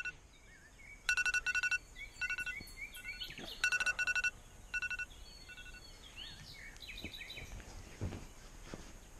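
Smartphone alarm beeping in quick groups of short, high electronic tones, which stop about five seconds in as the phone is picked up. Birds chirp faintly in the background.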